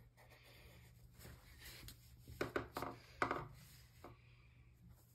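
Faint pencil scratching on a paper worksheet, then a cluster of louder knocks and rustles between about two and a half and three and a half seconds in as the pencil is put down on the desk and the sheet is shifted.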